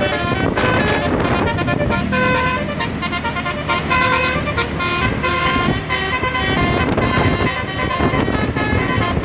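A bus's basuri 'telolet' multi-tone air horn playing a fast melody of short, changing notes, over the bus's engine running.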